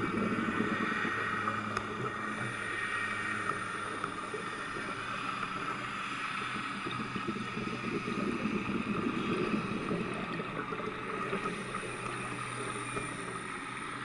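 Underwater ambient noise: a steady hiss and crackle with a faint, even low hum underneath.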